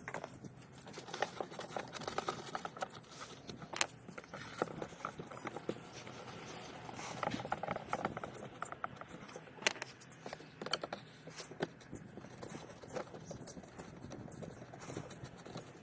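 Scattered clicks, taps and light scrapes of hand work on a washing machine while its gearbox is being taken out and replaced, over a faint steady hum.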